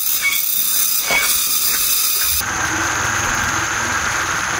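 Forest ambience: a steady high-pitched hiss with a few short faint chirps. About halfway through it changes abruptly to a softer, lower steady hiss with a thin, high, even whine above it.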